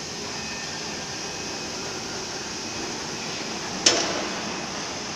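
Steady mechanical hiss and hum of an automatic tool-change CNC wood router running, with one sharp knock about four seconds in.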